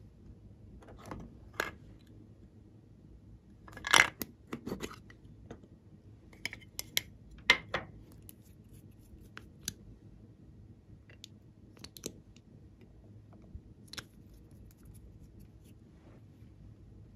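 Scattered small plastic clicks and light knocks as lip gloss tubes are handled, uncapped and set down, with a few soft scrapes in between. The loudest clicks come about four seconds in and again about halfway through.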